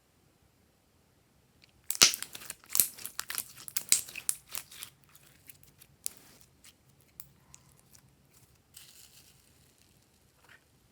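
Sharp crackling and crinkling: a dense burst starting about two seconds in and lasting about three seconds, then thinning to scattered quieter clicks.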